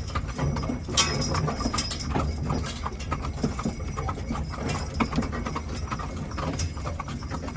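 Hooves of a team of two Haflinger horses clip-clopping at a steady walk as they pull a wagon, with a low steady rumble underneath.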